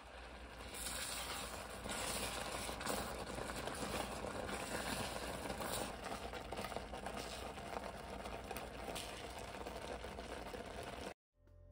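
Thick blueberry compote simmering in an enamelled cast-iron pot, a steady crackly bubbling with many small pops, as a spatula stirs through it. The sound cuts off suddenly near the end.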